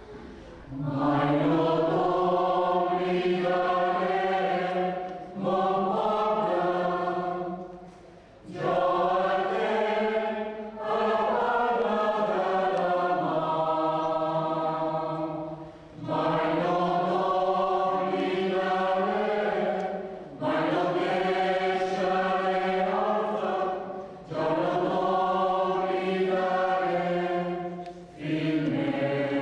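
Mixed choir of men's and women's voices singing a lullaby in slow, held chords, in long phrases with brief breath pauses between them, starting about a second in.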